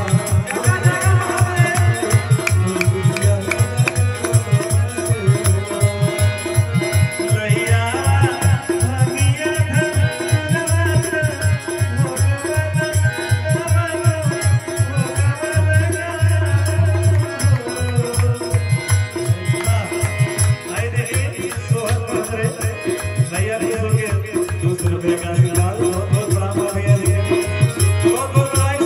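Live Indian devotional music: a dholak drum played in a fast, steady rhythm, with harmonium and a man singing.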